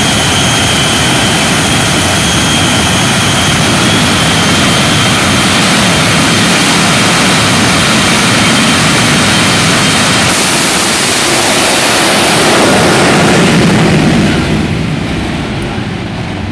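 The Shockwave semi truck's three jet engines running hard: a loud, steady jet rush with a thin high whine over it. About two seconds before the end the sound drops away sharply.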